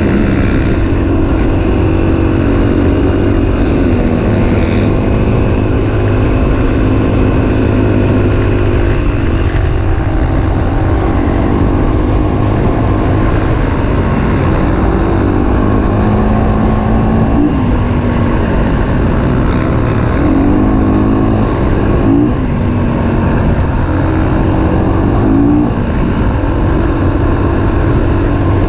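Dirt bike engine running while riding, its pitch rising and falling with the throttle several times, over a heavy rumble of wind on the microphone.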